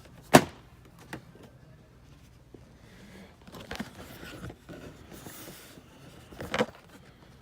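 Boxed toys being pulled off a store shelf and handled one after another: a sharp clack about half a second in, rustling and shuffling of the boxes in the middle, and another knock near the end.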